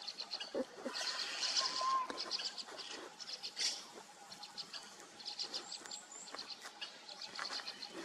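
White-cheeked starling nestlings begging from a tree-hole nest: rapid chattering calls in repeated bursts, louder in the first two seconds and fainter towards the middle.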